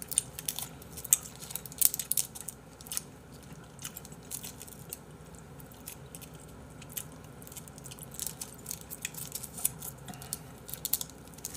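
Plastic film on individually wrapped processed cheese slices crinkling and crackling as it is peeled off by hand, in scattered short crackles.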